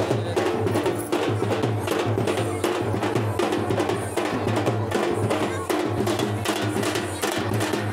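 Music with a quick, steady drum beat and sharp percussion hits.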